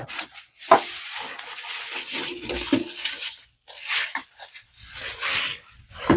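Plastic bubble-wrap bag rustling and crinkling irregularly as a boxed electronic unit is pulled out of it, with a couple of sharp knocks of the unit being handled.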